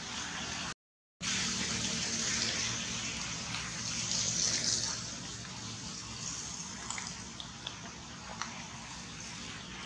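Steady rushing, hissing sound of water, cut off for about half a second near the start. A few faint clicks come in the latter half.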